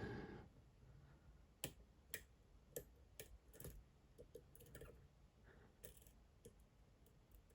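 Faint, irregular small clicks of a lock pick working the pins inside a Dom IX Twinstar cylinder lock, which has two rows of pins and an interactive element. The clicks come about every half second to a second.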